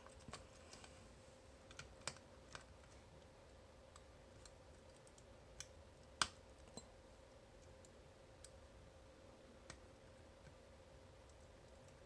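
Faint, scattered clicks of a tubular lock impressioning tool being worked in a tubular lock's keyway to single pin pick it, the sharpest click about six seconds in, over a faint steady hum.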